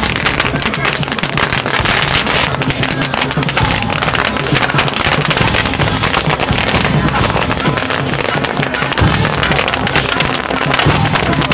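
Strings of firecrackers going off in a dense, unbroken run of sharp bangs, with music playing underneath.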